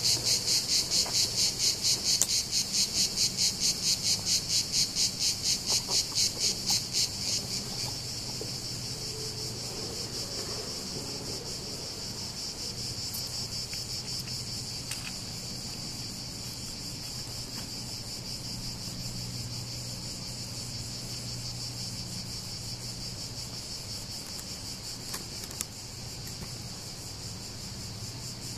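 Cicadas buzzing in a loud chorus. For about the first seven seconds it throbs a few times a second, then it settles into a quieter, steady buzz.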